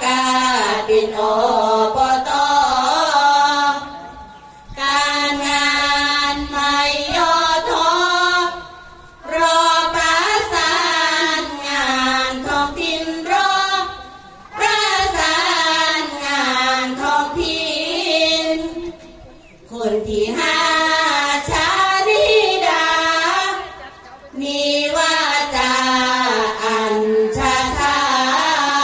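A group of women singing sarabhanya, Isan Buddhist devotional verse, in unison without instruments. The melody runs in long phrases broken by short pauses for breath about every four to five seconds.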